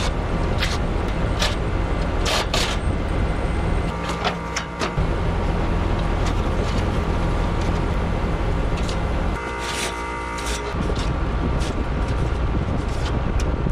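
Sharp clicks and metal clatter as screws come out and the sheet-metal top and louvered side panel of a Trane XR13 condenser cabinet are taken off, over a steady low mechanical hum.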